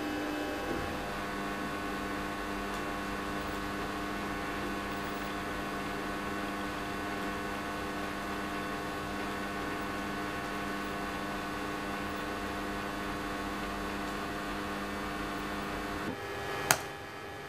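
A steady hum made of several held tones. Near the end it thins out, and a single sharp click sounds just before it cuts off.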